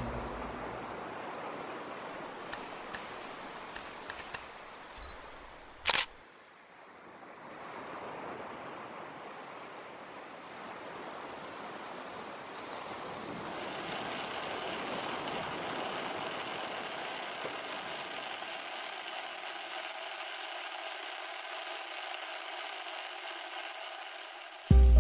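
Logo-intro sound design: a soft hiss with a few faint ticks, one sharp click about six seconds in, then a steady layered synth drone from about halfway through.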